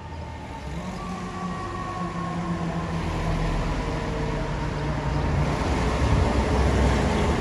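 City street traffic: vehicle engines and tyres running steadily, growing louder toward the end as a vehicle passes close by.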